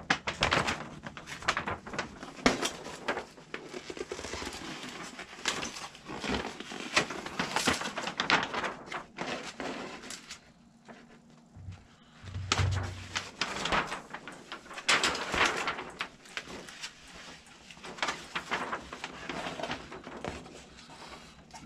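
Large paper plan sheets being unfolded and handled, crackling and rustling on and off, with a short lull about halfway through.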